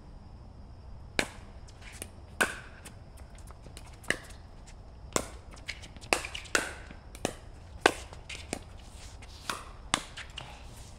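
A pickleball rally: sharp pops of the hard plastic ball off paddles and the court. There are about a dozen hits at irregular spacing, roughly one a second, some coming in quicker pairs.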